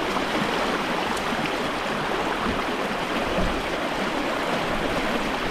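Fast-moving creek water rushing and splashing close to the microphone, a steady wash of water noise.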